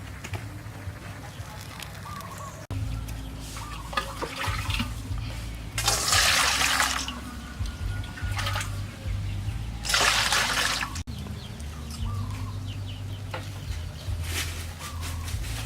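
Water pouring or splashing twice, each rush about a second long, over a steady low background with faint bird chirps.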